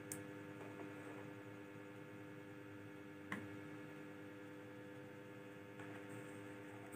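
Faint room tone with a steady low hum, broken by two short clicks, the sharper one a little before the middle, and a faint brush of handling near the end.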